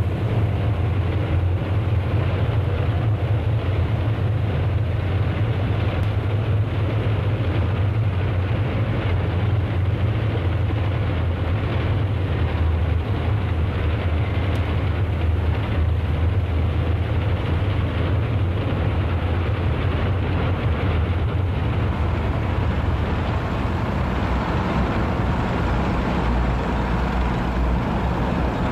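Column of tanks driving past in parade: a steady, deep rumble of engines and tracks that does not let up.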